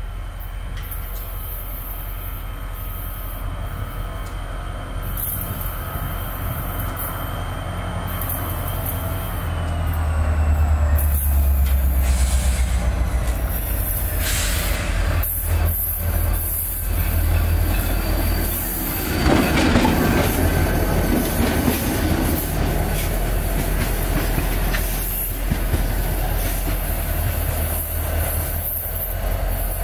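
Diesel-hauled freight train passing on a curve: the locomotive engine rumbles, loudest as it goes by, and the wagon wheels squeal against the curved rail with thin high tones that slide down in pitch. Steady rolling and clatter of the wagons on the track runs underneath.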